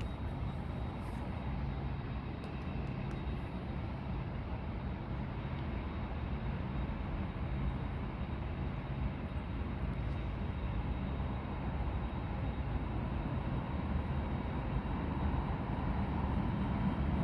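Lufthansa Boeing 747's four jet engines running at taxi power: a steady rumble with a hiss, growing slightly louder toward the end as the jumbo rolls closer.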